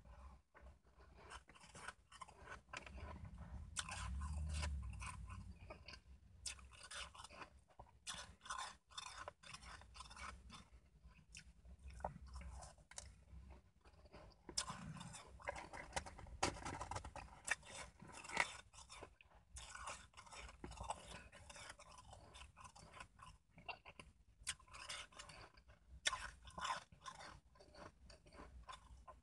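A person biting and chewing mouthfuls of packed shaved ice: an irregular run of crisp, crackly crunches throughout.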